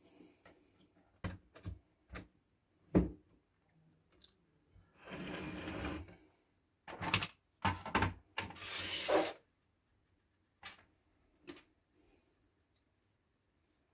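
Kettle parts being handled during repair: scattered sharp clicks and knocks, with a rubbing, scraping noise about five seconds in and a shorter one about nine seconds in.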